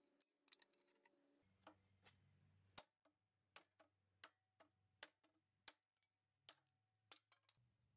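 Faint, sharp knocks of a restored fireman's axe striking a wooden slat, hacking into it in quick, uneven blows, roughly two a second, the hardest about three seconds in.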